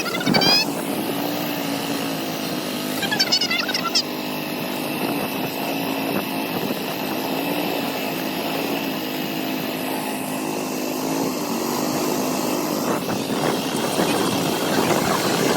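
Small boat engine running steadily at an even pitch, with two short, rising high-pitched calls, one right at the start and one about three seconds in.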